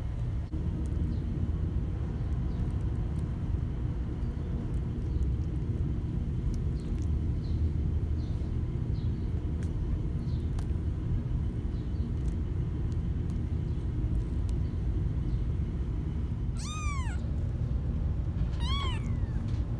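Ten-day-old kittens mewing: a few faint high squeaks, then two clear high-pitched mews near the end, each rising and falling in pitch. A steady low rumble runs underneath.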